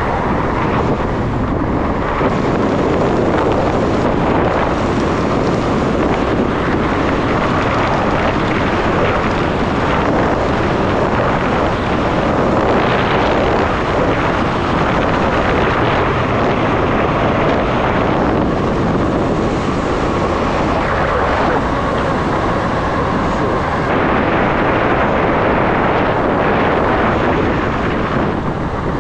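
Steady rush and buffeting of wind on the action cameras' built-in microphones as an electric enduro bike is ridden at speed on a paved road.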